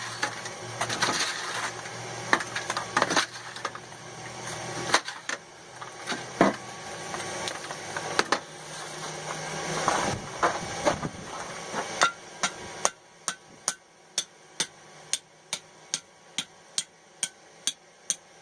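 Blacksmith's hand hammer striking hot mild steel flat stock, likely folding the half-cut bar over to close it for forge welding. The blows are irregular at first, then settle into a steady run of sharp ringing strikes, about one and a half a second, from about twelve seconds in.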